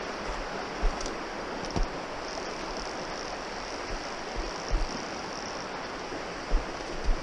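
A small woodland brook running steadily, with a few short, low thumps.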